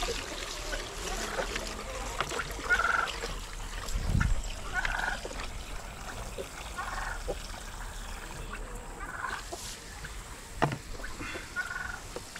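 Domestic fowl calling in short calls about every two seconds, five times, with a sharp knock near the end.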